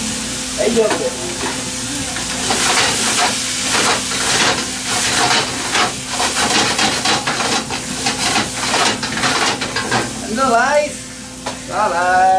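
Chicken rice sizzling in a frying pan over a high gas flame, stirred and tossed with a wooden spatula in rapid repeated scraping strokes for several seconds. The strokes stop about ten seconds in, and a voice calls out briefly near the end.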